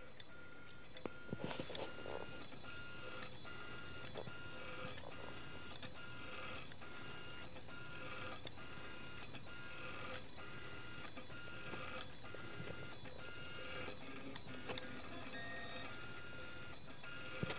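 Prusa Mendel RepRap 3D printer running a print, its stepper motors whining in several steady tones that break off and restart about every half second as the print head sweeps back and forth and reverses.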